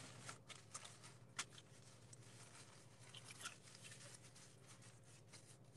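Very faint rustling and rubbing of hands being dried in a cloth towel, with a few soft clicks, over a low steady hum.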